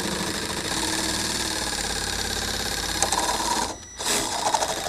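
Milwaukee M12 Hackzall one-handed reciprocating saw running steadily, its blade cutting through a PTO shaft's plastic guard tube; near the end the cut goes through and the cut-off end of the tube drops away.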